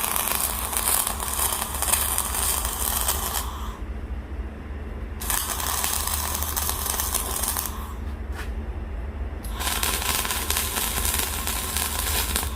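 Electric arc welding on the steel axe blade of a hydraulic log splitter: a crackling, sizzling arc in three runs, broken by two short pauses, over a steady low hum.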